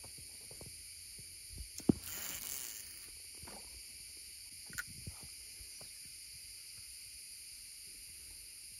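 Steady high-pitched insect buzzing. About two seconds in comes a sharp click with a short rushing hiss after it, and a couple of lighter clicks come a few seconds later, from the spinning rod and reel being worked.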